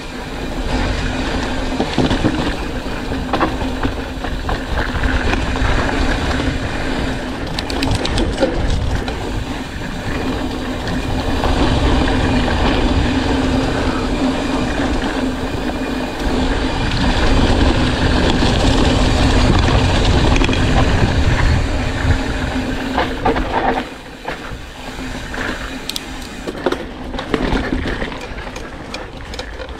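Mountain bike being ridden along a dirt trail: tyres rolling and the bike rattling, with wind rushing over the microphone. It grows louder about two-thirds of the way through, then drops off suddenly and runs quieter near the end.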